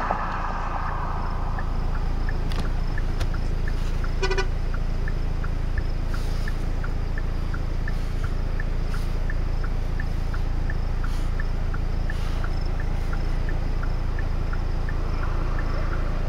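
A vehicle idling with a low steady rumble while its hazard flasher ticks regularly, two or three ticks a second. A short electronic beep sounds about four seconds in.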